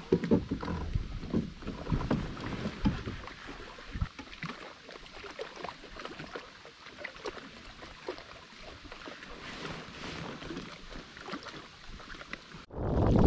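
Light water lapping against a kayak hull, with scattered soft clicks and knocks from a baitcasting rod and reel being handled. Near the end it cuts to loud wind buffeting the microphone.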